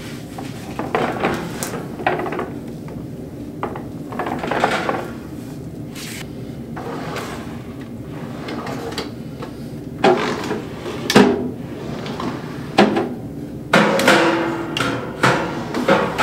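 Drawers of a white oak kitchen cart sliding out and in on metal full-extension drawer slides: repeated rolling swishes, each push closed with a wooden knock, several sharp knocks in the second half.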